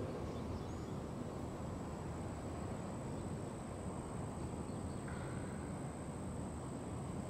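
Faint steady outdoor background noise, mostly a low rumble, with a thin high-pitched steady whine running through it.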